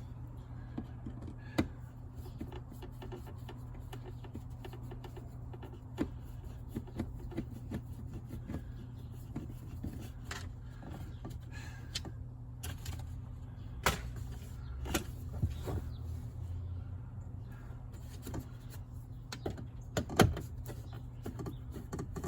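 Scattered clicks and knocks of car interior parts and tools being handled, a few sharper ones spread out, over a steady low hum.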